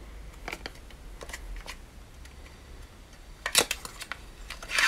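A cardboard mascara box being handled and opened: a few light clicks and taps, then two louder short rustles, one about three and a half seconds in and one near the end.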